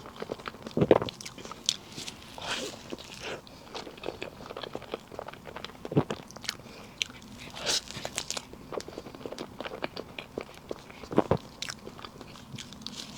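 Close-miked eating sounds: someone biting into and chewing soft layered cake, a run of wet clicks and smacks with a few louder bites along the way.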